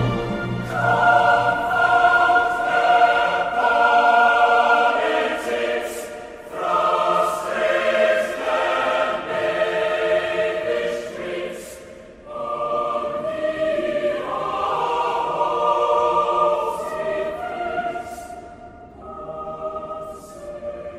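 Choral music: a choir singing slow, held chords in phrases of about five or six seconds, with a short dip between phrases.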